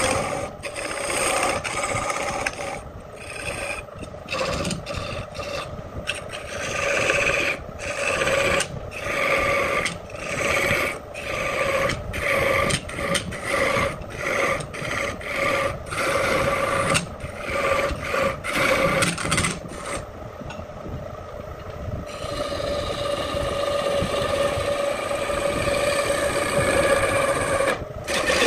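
Wood lathe spinning a wooden disc while a hand-held turning tool cuts it: a rasping scrape of the tool on the wood over a steady motor hum. The cutting comes in short strokes for most of the time, stops briefly near the end, then resumes as one long unbroken cut.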